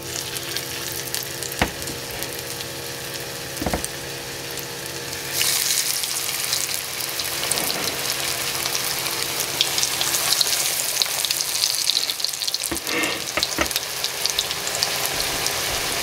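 Breaded mountain lion schnitzel cutlets sizzling in hot coconut oil in a cast iron skillet. The sizzle gets louder about five seconds in as more cutlets go into the oil, with a few light knocks along the way.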